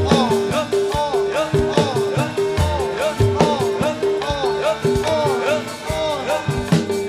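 Javanese gamelan playing jathilan dance accompaniment without singing. A steady, driving beat: a metal gong-chime note repeats evenly, over drum strokes and many short bending notes.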